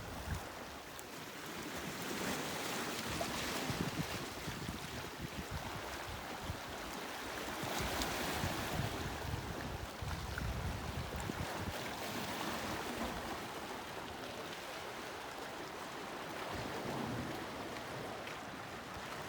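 Ocean waves washing onto a shore, the surf swelling and easing in slow surges about every six seconds.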